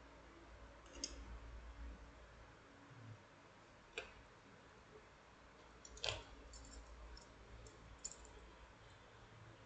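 Metal wire puzzle pieces clicking as they are handled: a few separate sharp clicks, the loudest about six seconds in, followed by a scatter of faint high metallic ticks.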